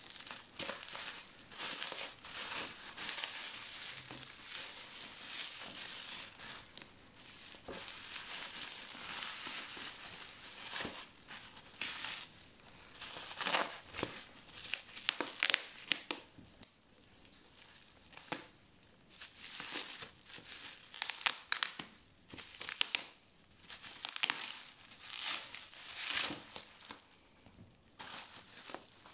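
Plastic bubble wrap crinkling and crackling as it is handled and pulled off a boxed item. The crinkling is fairly continuous at first, then comes in separate sharp crackles from about halfway through.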